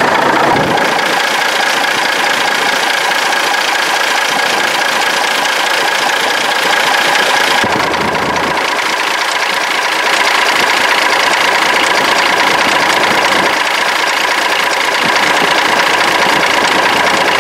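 1977 Mack R-model truck's diesel engine running at idle, heard close up at the front of the engine by the belts and pulleys. It is a steady, loud sound with a high-pitched whine through it, and its tone shifts slightly about eight seconds in.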